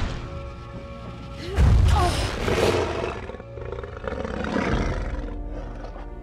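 Dramatic orchestral film score with a creature roar laid over it. There is a heavy hit right at the start, and a loud cry that bends in pitch about one and a half seconds in.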